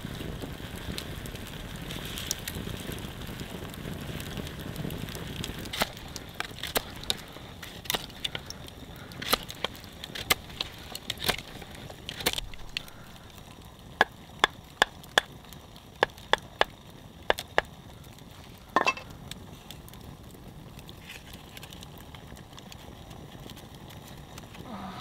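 Knife blade chopping into a small stick, a run of sharp knocks, uneven at first and then about two a second for a few seconds, with one heavier knock near the end. A steady low rush fills the first few seconds.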